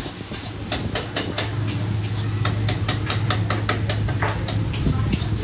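Metal spatula clattering and scraping against a wok in quick repeated strokes, about four or five a second, while food fries in it. A steady low hum runs underneath.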